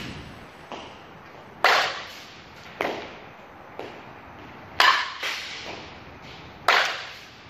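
Softball bat hitting a ball off a batting tee three times, each a sharp crack, with a softer knock about half a second after each hit.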